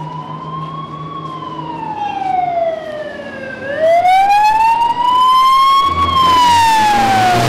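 Ambulance siren wailing in slow rising and falling sweeps, about five seconds per cycle, getting louder about four seconds in, with a vehicle engine running underneath and a rush of noise near the end.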